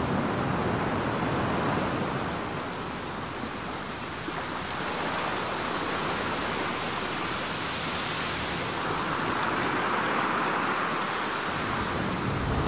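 Ocean surf: a steady rush of waves breaking and washing that slowly swells and eases.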